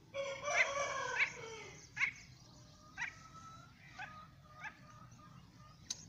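Young francolin (teetar chick) calling: a loud run of overlapping pitched calls with rising sweeps for about the first two seconds, then short single calls about once a second. A sharp click near the end.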